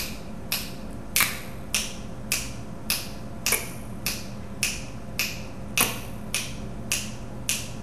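Finger snaps at a steady, metronome-like beat, a little under two a second, imitating a metronome click.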